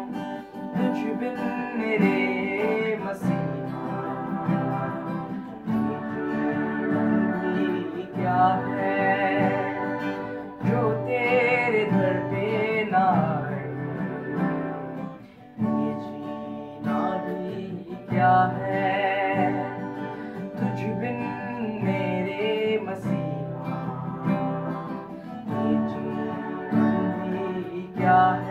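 Music: a song with guitar accompaniment and a singing voice.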